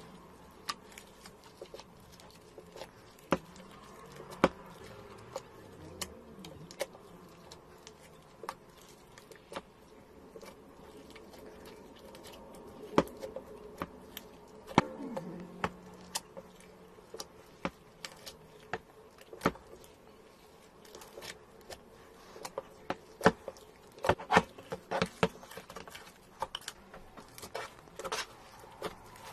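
Slime being squeezed and poked, giving off irregular small pops and clicks that come thicker and louder about three-quarters of the way through.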